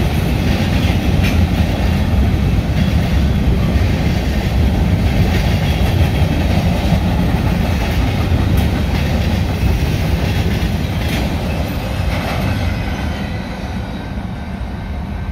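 Freight cars (covered hoppers and tank cars) rolling past at speed: a steady low rumble with the clickety-clack of wheels over rail joints and a few sharp knocks, easing a little in the last few seconds as the end of the train nears.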